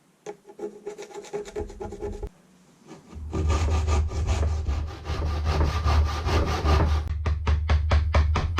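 Wood being sawn in quick, regular strokes to enlarge the cutout in the workbench top for the vise. A brief, softer run of cutting comes first, then continuous, louder sawing from about three seconds in.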